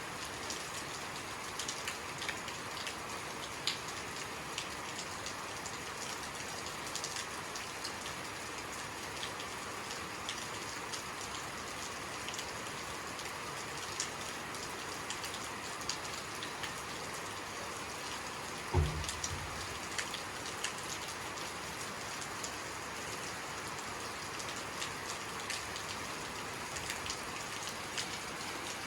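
Steady rainfall hissing, with many sharp individual drop ticks. About two-thirds of the way through there is one brief low thump.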